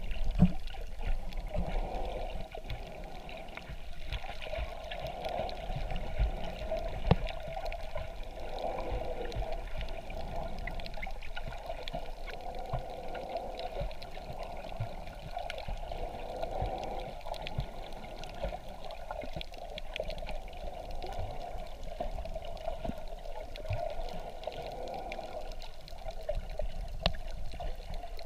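Sea water sloshing and gurgling around a camera held underwater in shallow sea, with a few sharp knocks.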